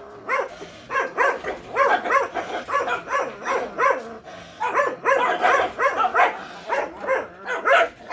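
Month-old Jindo puppies yipping and barking in many short, high calls in quick succession, with a brief lull about halfway, as they squabble in rough play.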